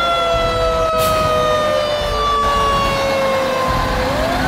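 Fire engine siren wailing. Its pitch climbs quickly, slides slowly down for about four seconds, then climbs again near the end.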